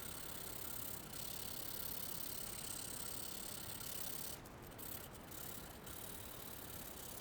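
Hand sanding a metal toolbox latch plate with 220-grit aluminum oxide sandpaper: a steady scratchy rasp of abrasive paper on metal, with a few brief pauses about four to six seconds in.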